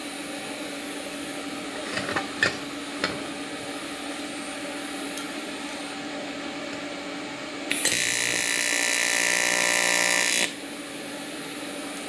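AC TIG welding arc on thin aluminium tube: a harsh, high buzz starts about eight seconds in, lasts about three seconds as a short tack is laid, and cuts off sharply when the pedal is released. Before it, a few light clicks over a steady low hum.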